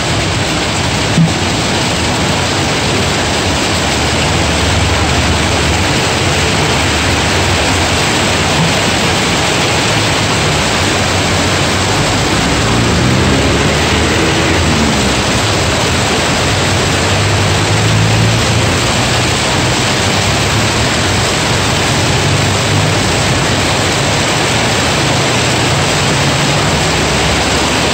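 Heavy rain pouring down onto the pavement and parked cars, a loud, steady hiss. Car engines hum low beneath it, with a vehicle driving past about halfway through.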